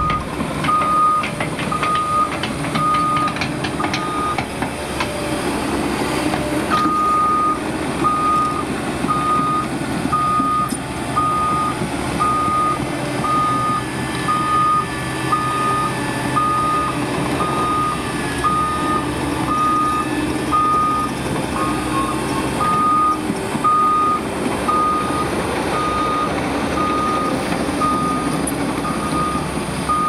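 Electronic travel alarm of an RC excavator's sound module, beeping steadily about once a second, pausing briefly about four seconds in and then resuming, over a steady low simulated engine sound as the machine tracks.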